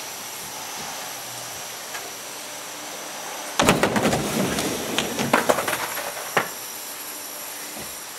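A skater and skateboard slamming onto a plywood mini ramp in a failed drop-in, about three and a half seconds in. The board's wheels and deck then clatter and knock across the wood for a few seconds, ending with one sharp knock.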